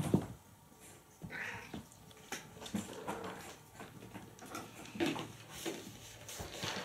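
Cat and kittens meowing in a few short, separate calls: a higher call about a second and a half in and lower ones around five seconds in, with light taps and knocks in between.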